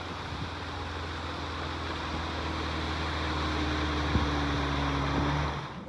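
Motorboat underway at speed: a steady engine hum under rushing water and wind noise, slowly building, with a single knock about four seconds in. Near the end the engine throttles back and the noise drops off suddenly.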